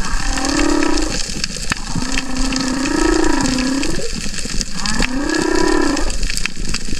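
Humpback whale song: three long, low calls, the middle one the longest and sliding upward at its end, over a steady water hiss with scattered clicks.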